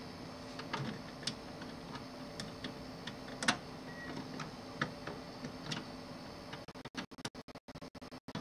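Light, irregular clicks and ticks of a hand screwdriver turning a screw into the metal chassis of a DLP television, over a faint steady hum. The sound cuts out in brief gaps near the end.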